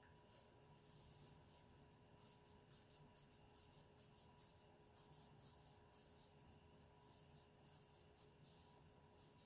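Faint brushing of a fine round watercolour brush on Arches 140 lb watercolour paper: short strokes, a few a second in irregular clusters, laying in long fur. A faint steady hum sits underneath.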